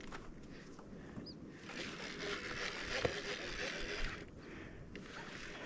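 Water washing and splashing around a small boat, swelling into a steady hiss for a couple of seconds, with a single knock about three seconds in.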